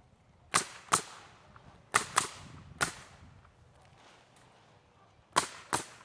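Nails being driven into 1x4 wooden furring strips on a roof: seven sharp cracks, mostly in quick pairs, each with a short ringing tail.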